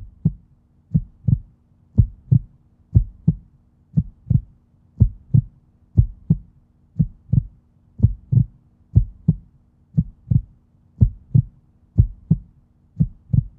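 Heartbeat sound effect: paired low thumps, lub-dub, about one pair a second, steady throughout, over a faint steady hum.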